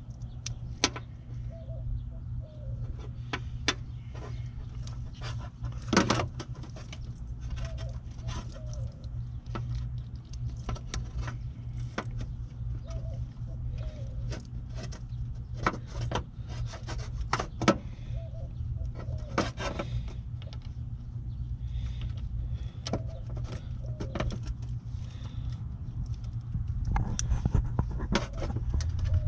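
Scattered clicks, taps and rustles of plastic parts and wiring being handled as an HID ballast and its wiring harness are fitted behind a headlight, over a steady low rumble.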